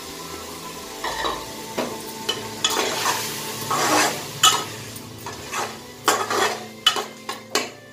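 Green peas being stirred and fried in a pan of onion-tomato masala in hot oil: the utensil scrapes the pan in a run of uneven strokes over the sizzle, starting about a second in.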